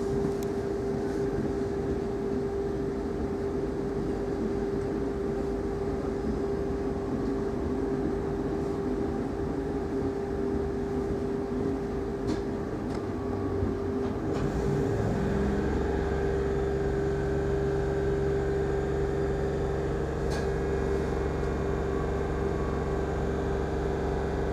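Interior running noise of a Class 313 electric multiple unit under way: wheels on the rails with a steady whine, a few light clicks, and a low hum that comes in a little over halfway through.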